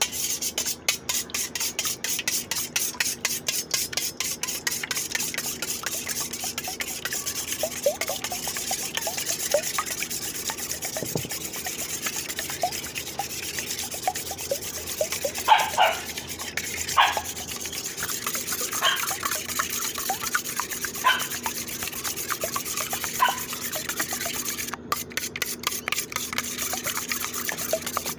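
Fast, rhythmic scraping, several strokes a second, like a utensil working a mixture in a bowl, with a few sharper clinks in the second half. The scraping stops about three seconds before the end.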